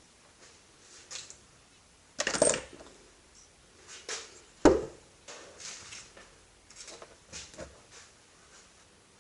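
Hard objects being handled: scattered light clicks, a short rattling clatter about two seconds in and a single sharp knock a little before halfway.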